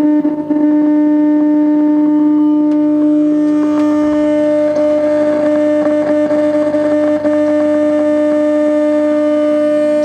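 Steady, loud buzzing tone with several overtones from the speaker of a 1974 Wards Airline portable colour tube TV, powered up with an IF signal fed straight into its main board. A few light clicks from handling come in the middle.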